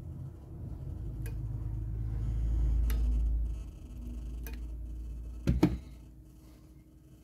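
Ryobi hot glue gun being worked against cotton cord on a wooden strip: light clicks come about every second and a half over a low rumble. A sharp double knock, the loudest sound, comes about five and a half seconds in as the gun is lifted off.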